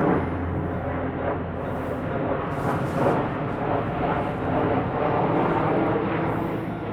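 Hankyu train passing over a railroad level crossing: a steady, loud rumble of wheels on the rails.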